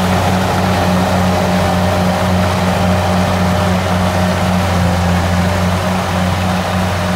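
Kubota DC70 combine harvester's diesel engine running steadily, a constant low drone with machinery noise over it.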